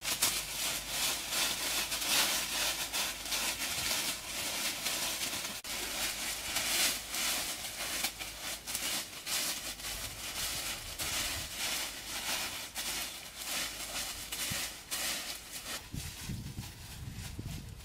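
Dry fallen leaves rustling and crackling as they are scraped and shoved aside by hands and feet, clearing the leaf litter off the forest floor.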